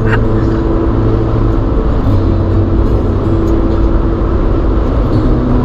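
Car driving at highway speed: a steady engine drone with road and wind noise.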